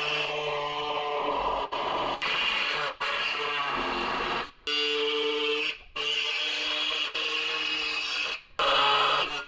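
Pneumatic mini reciprocating air saw cutting through the sheet steel of a new rocker panel, running steadily in runs of one to three seconds with about six short stops and restarts.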